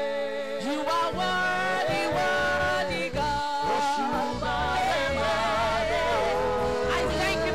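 Live gospel praise music: a woman sings the lead into a microphone with vibrato, joined by backing singers, over band accompaniment with a steady low bass line.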